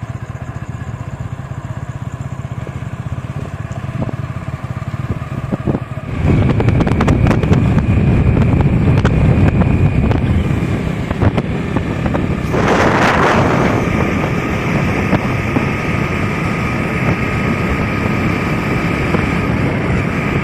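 Hero Splendor Plus motorcycle's single-cylinder four-stroke engine running as the bike is ridden, with wind noise on the microphone. The sound steps up and grows louder about six seconds in, and a short rush of noise comes a little past halfway.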